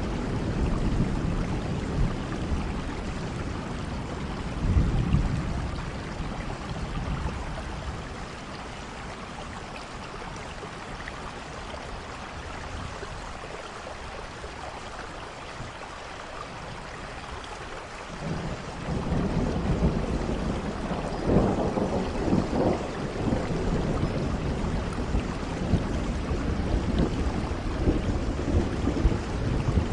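Steady rain with low rolling thunder. The rumbling eases a few seconds in and swells again a little past halfway.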